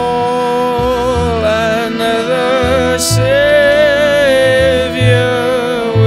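A male singer holds a slow hymn melody with a wavering vibrato, accompanied by a harmonium's sustained chords and a plucked double bass sounding a low note about once a second.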